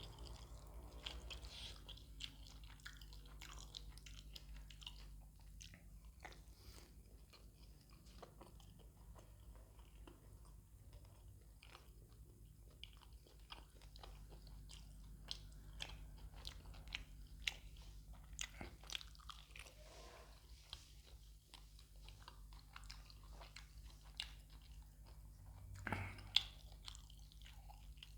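A person eating roti with fish curry close to the microphone: steady chewing with many small wet mouth clicks, and a louder bite near the end, over a faint low hum.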